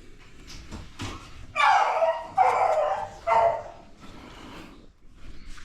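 A dog barking three times in quick succession, each bark about half a second long.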